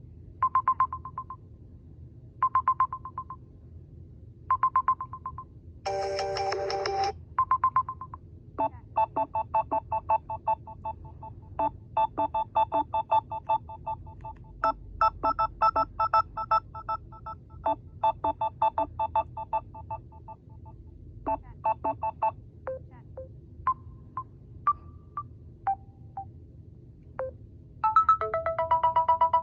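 Samsung Galaxy A01 ringtones playing through the phone's speaker, several electronic tunes in turn. First come short beeps about every two seconds with a brief louder chord among them. Then a fast run of repeated notes, then a few scattered single notes, and a new tune starts near the end.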